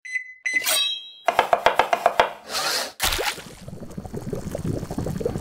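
Channel-intro logo sound effects: a short bell-like ding and chime, a quick run of about ten sharp knocks, a whoosh, then a hit followed by a dense rattling crackle.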